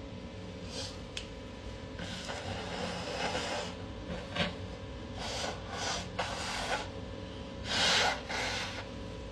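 A person's sniffs and breaths through the nose during a sneezing fit: a string of short hissing noises, the loudest about eight seconds in.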